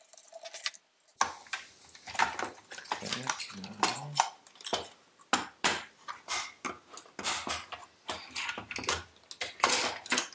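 Hard plastic parts of a Roomba cleaning-head assembly clicking and knocking as the blue housing is worked off the green brush module. It is an irregular run of short, sharp clicks that starts about a second in.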